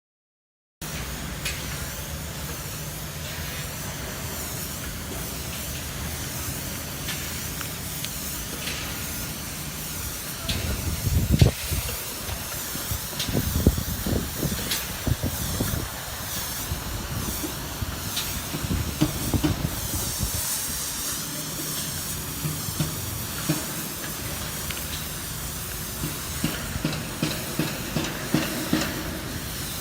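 Spray rig applying polyurethane to a roof: a steady spray hiss over a low machine hum, with irregular low rumbles about a third of the way through.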